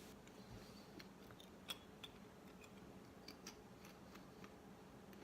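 Faint, scattered crunches of a thick fried tortilla chip being chewed, a few soft cracks a second apart, over a low steady hum.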